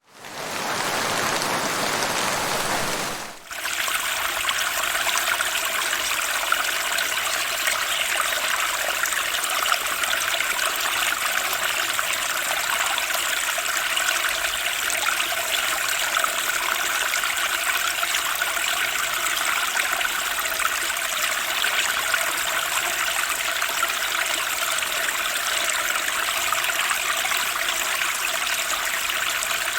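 Turbulent spring stream: fast water rushing and splashing over rocks in a steady, even wash. A different water recording fades in at the start and dips out briefly about three seconds in, where the steady stream takes over.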